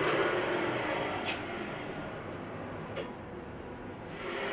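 Carriage of a homemade CNC router sliding along its metal gantry rails, pushed by hand with the lead screws not yet attached: a steady rolling hiss with a couple of faint clicks about one and three seconds in.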